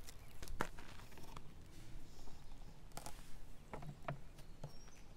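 A few scattered light knocks and scrapes as a plastic bin holding used engine oil is picked up and tipped, over a low rumble of wind on the microphone.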